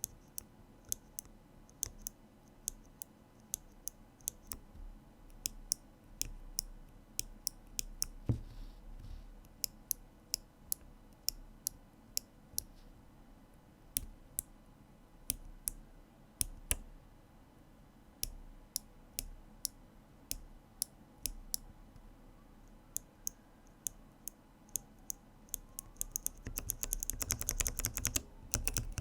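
Mechanical keyboard switches being pressed: single sharp clicks spaced about a second apart, breaking into fast typing near the end.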